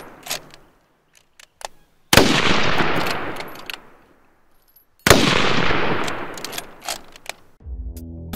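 Two .303 No.4 Lee-Enfield rifle shots about three seconds apart, each followed by a long rolling echo that fades over about two seconds, with faint clicks between them. Music begins near the end.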